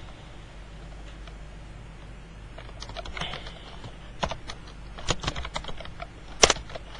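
Typing on a computer keyboard: a run of irregular keystrokes that starts about two and a half seconds in, the loudest strike near the end, over a faint steady hum.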